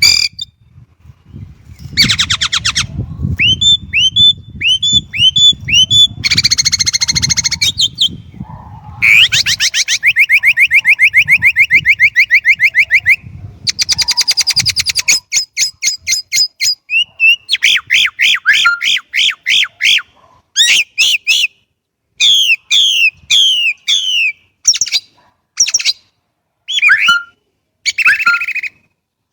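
Chinese blackbird singing a varied run of phrases: fast trills, rows of repeated whistled notes and short chattering notes, with brief pauses between them. A low rumble runs under the first nine seconds.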